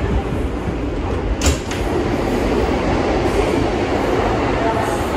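An R160B subway car running through a tunnel, heard from inside the car: a steady loud rumble of wheels on track, with a single sharp knock about a second and a half in.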